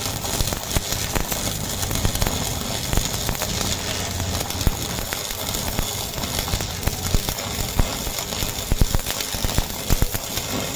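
Stick arc welding of a crack in a steel truck chassis: the arc crackles and sputters steadily, with frequent irregular sharp pops.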